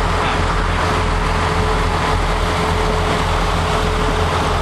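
Fishing boat's engine running steadily under way: a constant low drone with a thin steady whine above it.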